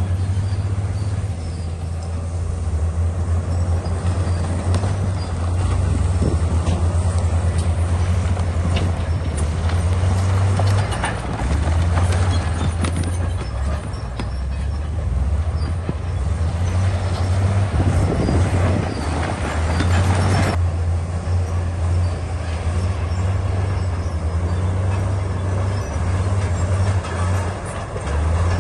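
Komatsu bulldozer's diesel engine running with a steady low drone that swells and dips under load, with metallic clatter and knocks from the working machine; the sound changes abruptly about twenty seconds in.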